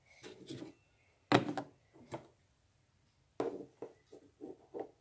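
Several short, scattered knocks and taps, the sharpest about a second and a half in, followed by a run of quicker, softer knocks near the end.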